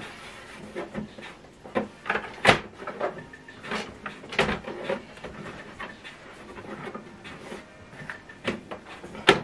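Scattered plastic clicks and knocks from an HP OfficeJet Pro 7720 inkjet printer's scanner lid and casing being handled, with the lid raised and then lowered. The loudest knock comes about two and a half seconds in, and a sharp click comes just before the end.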